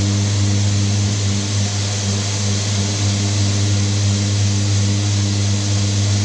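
Mirka electric sander running steadily against a painted door: a constant motor hum under the hiss of abrasive on paint, rubbing off the glossy top coat to give a key for primer.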